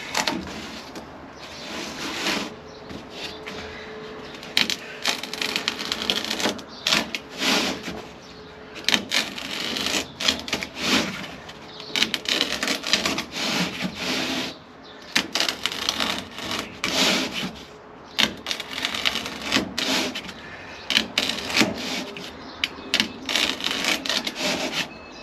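Hand knife cutting through sheet material: many irregular scraping strokes, mixed with sharp clicks and the material being handled.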